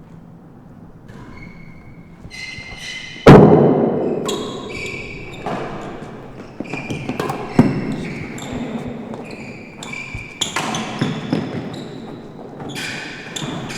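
A real tennis rally on an indoor court: the heavy ball struck by rackets and thudding off the walls, the loudest hit about three seconds in, with short squeaks of players' shoes on the floor between the hits.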